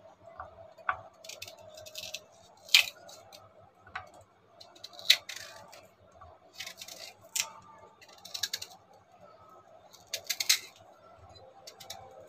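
Kitchen knife slicing through a peeled raw green mango held in the hand, a crisp cut about every one to one and a half seconds.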